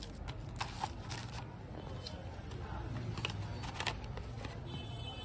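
Scattered clicks and crinkles of a smartphone's box and packaging being handled during unboxing, over a low steady hum. A brief high buzzing tone comes near the end.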